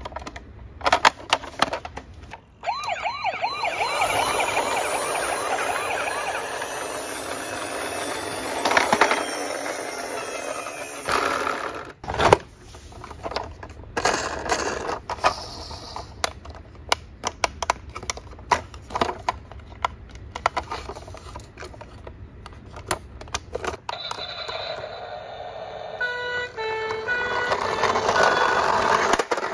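Toy ambulance's electronic siren playing a fast-wavering wail for about nine seconds, then clicks from handling the plastic toys. Near the end a toy ambulance plays a run of stepped electronic tones with its roof light flashing.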